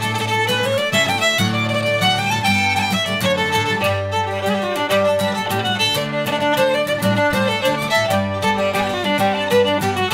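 A lively Shetland fiddle tune with guitar accompaniment: quick running fiddle notes over steady strummed chords.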